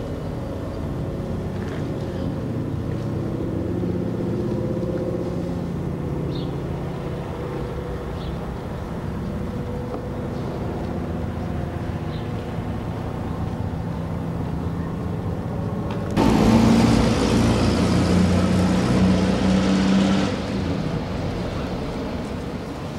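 Motor vehicle engine running steadily, its pitch drifting slowly. About sixteen seconds in, a louder rush with a stronger low hum comes in, lasts about four seconds, then drops away.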